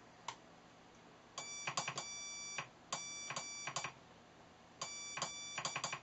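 Morse code side tone from a homemade CW keyer's small speaker, keyed by hand on a straight key: a steady high-pitched beep switched on and off in three groups of dots and dashes, starting about a second and a half in. A click comes just after the start.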